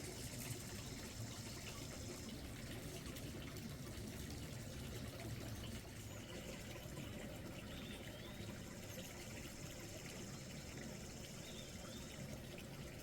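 Steady outdoor ambience of trickling water, with a high insect-like buzz that comes and goes and a couple of faint bird chirps.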